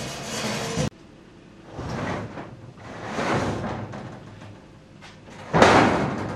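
Large steel sheets scraping and sliding over metal as they are pushed, in several separate pushes. The loudest is a sudden scrape about five and a half seconds in.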